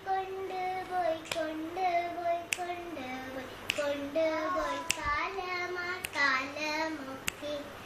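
A single high voice singing a Malayalam poem unaccompanied, in long held notes that step up and down. A sharp clap comes about every 1.2 seconds, keeping time.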